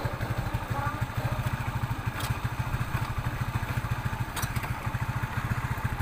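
Small motorcycle engine running steadily with a fast, even putter. Two sharp clicks, about two and four seconds in.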